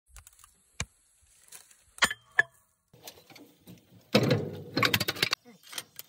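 Metal objects clinking: a few sharp clicks with a short ring, then a clattering, jangling rattle lasting about a second.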